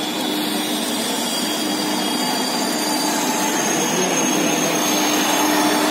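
WAG5 electric locomotive rolling slowly past alongside the platform: a steady whirring rush from its motors and cooling blowers with thin high whines over it, growing a little louder as it draws level.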